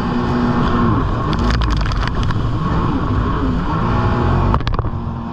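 Jet ski engine running, its pitch dropping about a second in and then rising and falling again, over a steady rush of noise. There are short crackles about a second and a half in and again near the end.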